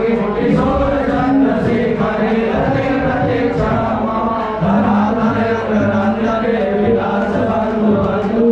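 A group of men chanting a devotional mantra together through microphones, holding long notes that step up and down in pitch every second or so.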